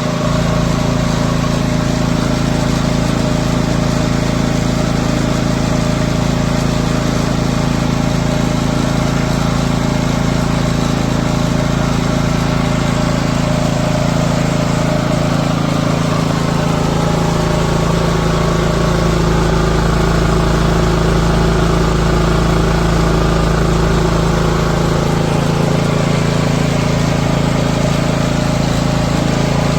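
Westinghouse dual-fuel portable inverter generator's engine running steadily, its tone shifting slightly about halfway through.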